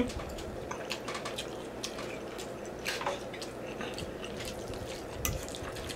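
A room fan running steadily, with scattered small wet clicks and squishes from a fork working through spaghetti in meat sauce on a plate.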